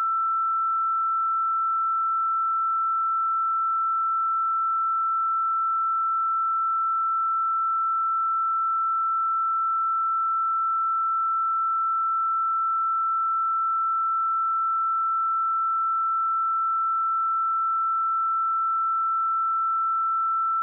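A pure 1332 Hz sine-wave test tone held at one steady pitch and level.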